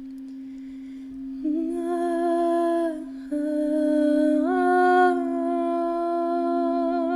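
A woman humming long held notes over a steady, pure sustained tone. Her voice comes in about a second and a half in, breaks off briefly around three seconds, then steps up in pitch and carries on with a slight waver near the end.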